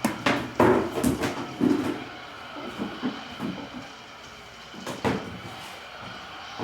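Cardboard box being handled and opened: a run of knocks and scraping, then a single sharp knock about five seconds in.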